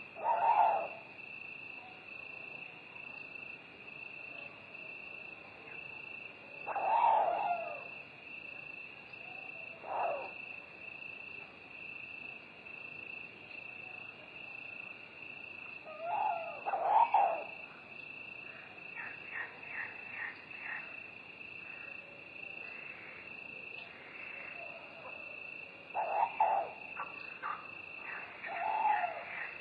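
Night forest ambience: crickets trilling steadily and without a break, with an owl hooting every few seconds, about six times.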